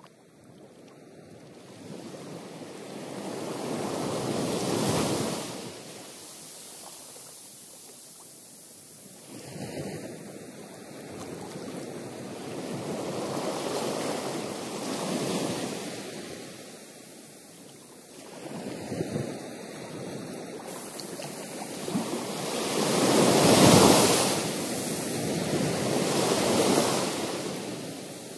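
Ocean surf breaking against the shore, the rush of each wave swelling and falling away every few seconds, the biggest wave about three-quarters of the way through.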